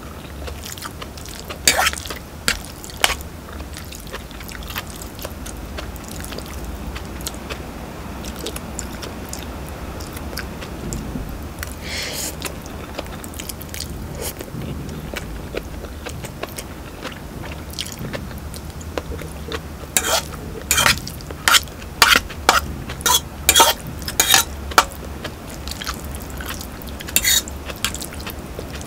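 Eating Samyang spicy instant noodles with a fork from a metal pot: chewing and slurping, with the fork clinking and scraping in the pot. A quick run of sharp sounds comes about two-thirds of the way through.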